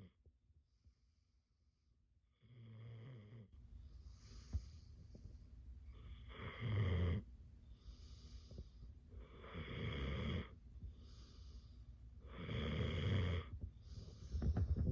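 A sleeping dog snoring, after a couple of seconds of silence. The snores come roughly every one and a half seconds, with a louder one about every three seconds.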